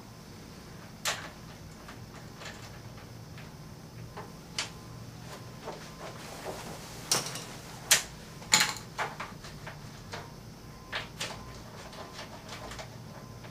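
Irregular metallic clicks and clanks of a hand wrench working a bolt on a motorcycle's engine mount and frame, the loudest a quick cluster of knocks a little past the middle.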